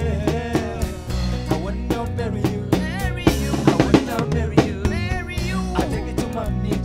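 Live Afropop band music: a drum kit keeping a steady beat with bass drum, snare and cymbals, over a bass line and bending melodic lines from the band.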